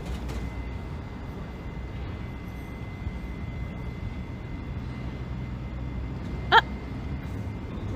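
Street background with a steady low rumble, like distant traffic, and a faint steady high tone. A single short voiced sound, like a brief 'hm', comes about six and a half seconds in.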